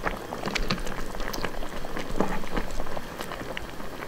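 Spicy, oily hotpot broth bubbling in a steel pot, with dense, irregular pops and crackles.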